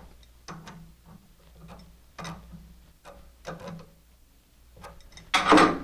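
Wrench tightening a 5/16 nut onto a steel stud on a reloading press's handle linkage: a series of separate metallic clicks at an uneven pace, about one every half second to a second.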